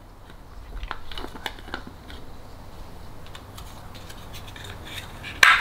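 Hands handling a plastic bottle cap with a paper liner: scattered light clicks and rustles, with a short, louder scrape near the end.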